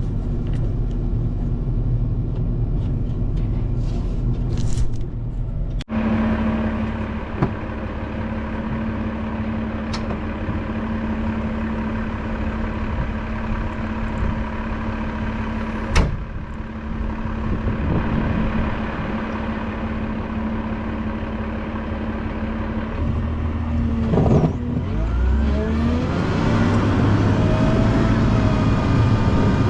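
Volvo L90H wheel loader's diesel engine running steadily under load while plowing snow. A sharp knock comes about halfway through, and near the end the engine note rises and falls as the machine works harder.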